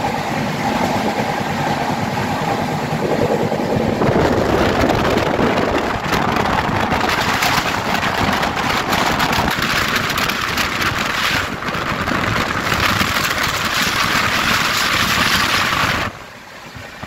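Express passenger train running at speed, heard from inside a coach: a loud, steady rush of wheels on the rails and air, dropping away sharply near the end.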